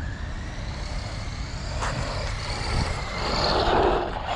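Wltoys 12429 electric RC buggy with a 550-class motor driving on asphalt. The motor whine and tyre noise grow louder as it passes close, about three to four seconds in. There is a single short click about two seconds in.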